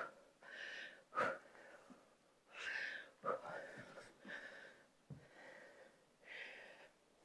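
A woman breathing hard during a jumping-jack and lunge workout: faint, short puffs of breath about once a second, with a few soft thumps of feet landing on an exercise mat.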